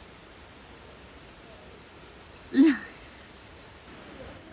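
Steady high-pitched insect chorus of crickets or cicadas in the forest, made of several even tones. About two and a half seconds in there is one short, loud vocal sound that falls in pitch.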